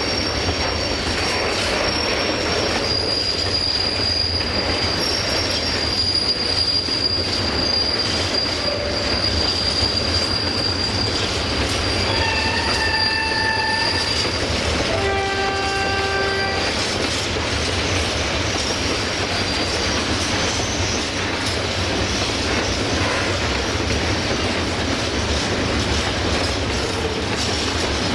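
A train moving through the station with a continuous rumble and rattle of wheels over rail joints. Its wheels squeal in a high steady tone through the first half. About halfway through, a horn sounds twice, a higher note and then a lower note, each about two seconds long.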